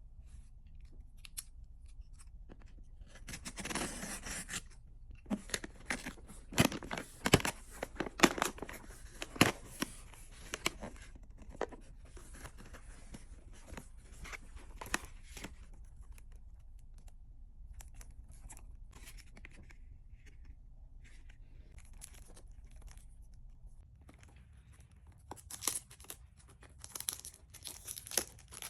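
Perfume packaging being unwrapped and handled: a tearing sound about four seconds in, then a run of sharp crackles and clicks, and more crinkling near the end.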